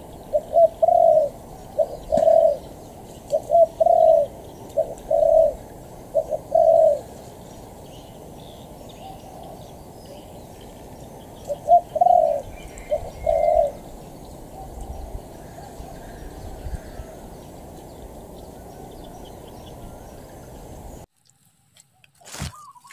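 Spotted dove cooing: a run of low, repeated coos in short phrases over the first seven seconds, then another short phrase about twelve seconds in. The sound cuts out abruptly near the end.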